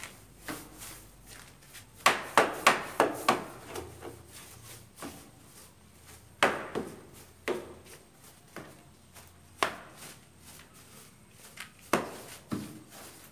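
A long-handled plastic scrub brush knocking and scrubbing against a wooden door frame to clean off dirt. A quick run of about five knocks comes about two seconds in, then single knocks every second or two.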